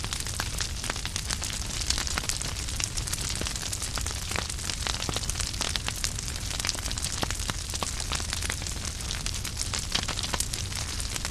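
Wood fire burning in a fireplace: a steady low rumble of flames with dense, irregular crackles and pops of burning logs.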